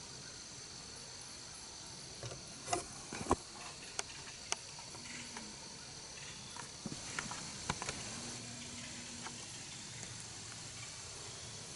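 Insects chirring in a steady high chorus, with scattered light crackles and snaps of dry leaves and twigs, the sharpest about three seconds in.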